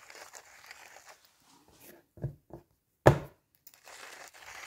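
Hand grinder twisted over a raw steak, a gritty crunching as coarse salt is ground out. It pauses in the middle for a couple of dull thumps, with a sharper, louder knock about three seconds in.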